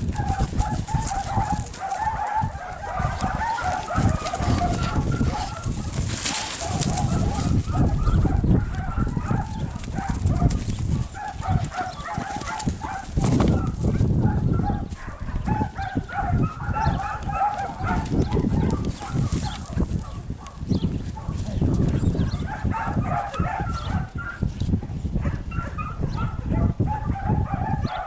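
Chickens clucking in repeated runs of short notes, over a low, uneven rumble.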